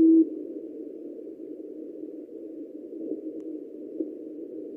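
Shortwave receiver audio of a very low-power HiFer Morse code beacon. One strong keyed dash of a steady low tone ends about a quarter second in. The signal then fades down into band noise (hiss), with the beacon's tone only faintly heard under it.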